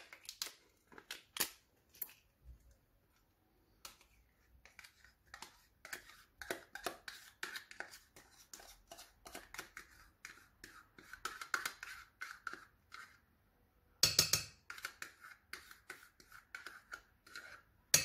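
A metal spoon scraping caramel pudding out of a plastic dessert cup: a run of quick scrapes and light clicks, with a louder clatter about 14 seconds in and again near the end.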